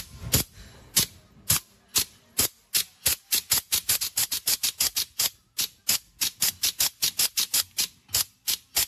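APLUS SC7E pneumatic hog-ring plier firing over and over, each shot a sharp metallic click as the jaws clinch and drop a ring. The clicks start about two a second and speed up to about five a second from around three seconds in. This is a test that the newly assembled pawl feeds the rings.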